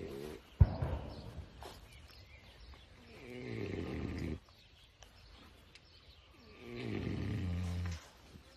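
An old pig snoring in its sleep: a sharp snort about half a second in, then two long, low snores that swell and stop abruptly, about three and a half seconds apart.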